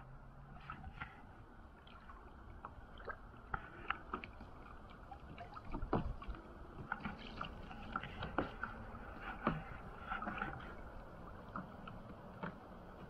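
River water gurgling and lapping against a plastic kayak hull as it drifts, with scattered small ticks and splashes that grow busier about halfway through.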